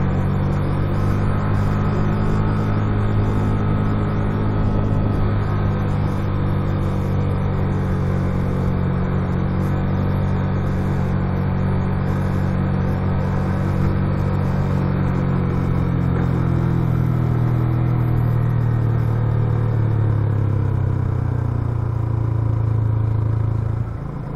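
Motorcycle engine running steadily while riding, a low even hum over road and wind noise. It drops suddenly in level just before the end.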